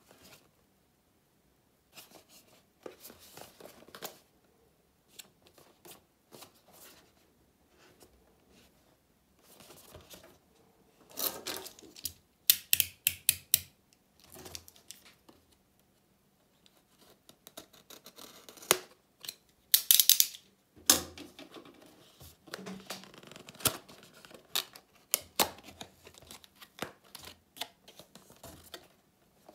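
A cardboard retail box being handled and cut open with a snap-off utility knife: irregular scraping, cutting and clicking against the cardboard, with rustling as the box is turned and opened.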